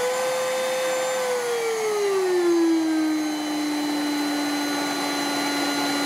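Silvercrest 22.2 V cordless cyclonic vacuum's motor running at full speed in normal mode, then switched to eco mode: about a second in, its whine glides down in pitch and settles at a steady, lower speed. It measures about 82 dB in normal mode and 73 dB in eco mode.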